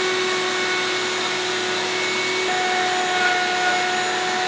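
A router mounted in a shop-made horizontal mortiser runs steadily while it cuts an end-grain mortise in a cherry rail. Its tone shifts about halfway through.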